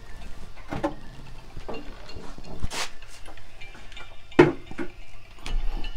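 A few separate short clicks and knocks over a faint low background, the loudest about two-thirds of the way in.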